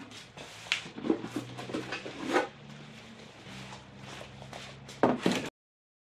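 Hollow plastic car ramps being picked up and handled, with scattered light knocks and footsteps on a concrete floor, and a louder double knock about five seconds in before the sound cuts out. A faint low hum runs underneath for most of it.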